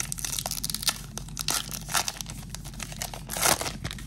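A baseball card pack's wrapper being torn open and crinkled in the hands: a dense crackling, with louder rips about halfway through and near the end.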